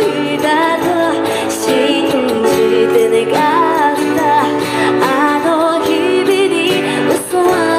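A woman singing a pop ballad live, with vibrato on held notes, over a street band's guitar accompaniment.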